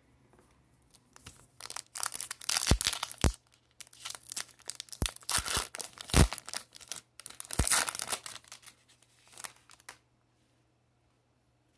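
Foil wrapper of an Upper Deck hockey card pack being torn open and crinkled by hand, in irregular bursts of ripping and rustling that start about a second and a half in and stop near the end.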